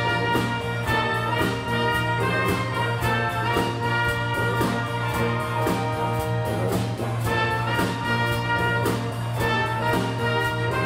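Small mixed ensemble of clarinets, cello, violin and acoustic and electric guitars playing a tune with a steady beat over a held low note.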